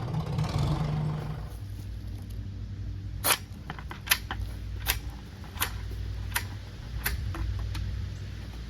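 An engine running, its louder note dropping away about a second and a half in and leaving a low steady idle. Over the idle, a series of sharp clicks comes roughly every three-quarters of a second.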